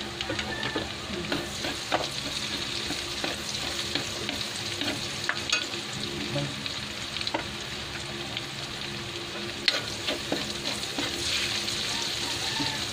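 Chopped garlic and chilies sizzling and frying in melted margarine in a metal wok, with a metal spatula stirring and scraping, giving irregular clicks against the pan throughout.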